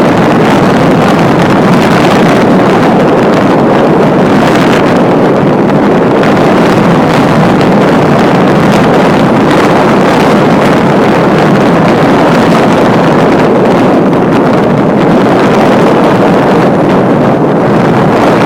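Strong wind blowing across the microphone: a loud, steady noise without let-up.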